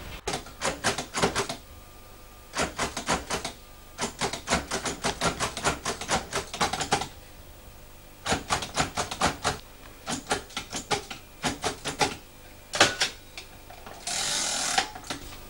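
Mechanical braille writer being typed on: bursts of rapid sharp clicks as the keys emboss braille dots into paper, broken by short pauses. A brief rasping rush near the end.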